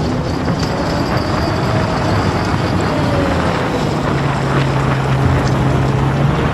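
Diesel engine of heavy earth-moving machinery running steadily and loudly under work. A steady low engine note comes up strongly about four seconds in.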